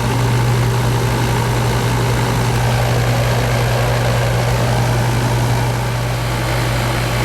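R-410A heat pump running steadily just after being recharged: a loud, even hum with a steady rushing noise over it.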